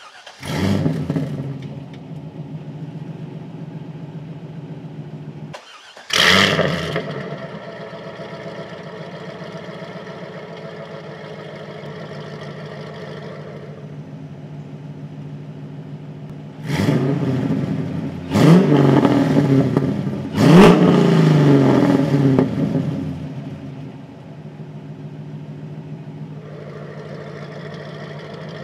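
C5 Corvette's 5.7-litre V8 through a custom valved exhaust. It fires up with a flare and settles to a steady idle, and after a short break it flares up again. In the second half it is revved three times in quick succession, each rise in pitch falling back, and it returns to idle.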